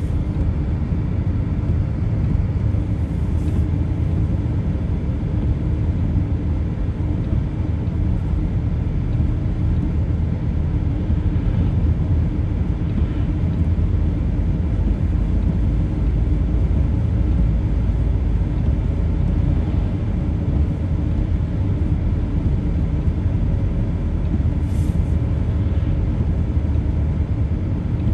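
A car driving along: the steady low rumble of engine and tyre noise, heard from inside the cabin.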